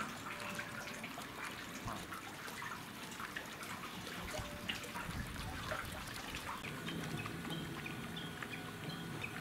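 Water trickling and dribbling steadily, with small drips and splashes.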